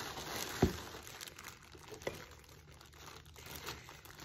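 Hair dryer packaging being handled: crinkling and rustling, with one sharp knock about half a second in and small ticks after it.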